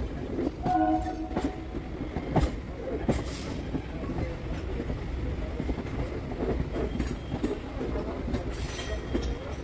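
EMU local train heard aboard, its wheels rumbling and clacking irregularly over points as it crosses from one track to another.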